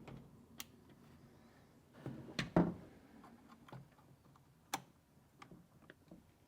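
Scattered clicks and knocks of door-panel parts being handled, with a louder cluster of knocks about two and a half seconds in and a sharp single click near five seconds.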